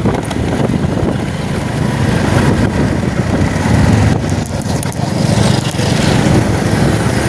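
A vehicle engine running steadily while on the move.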